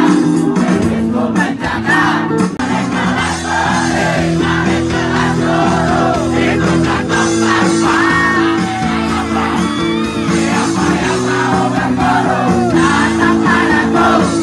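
A crowd of protesters singing a protest song together to a strummed guitar.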